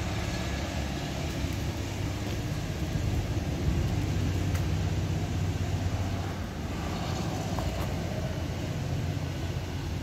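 An engine running steadily, a low hum.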